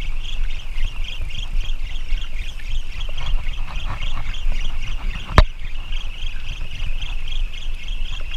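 Wind on the microphone and water lapping against a small outrigger fishing boat, over a steady high whirring that pulses about three times a second. One sharp knock just past five seconds in.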